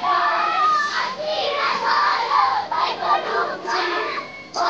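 A crowd of children's voices singing and shouting together, many at once.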